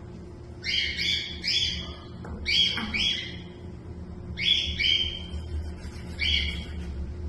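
A bird calling nearby in short, harsh notes, in groups of two or three, about seven calls in all.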